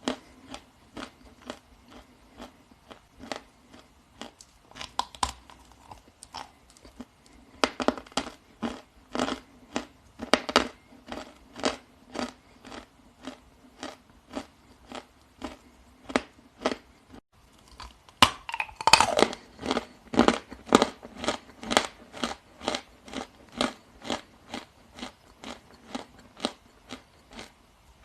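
Chewing of dry edible Ural clay: crisp crunches at a steady rhythm of about two a second, with a louder, denser burst of crunching about eighteen seconds in, likely a fresh bite.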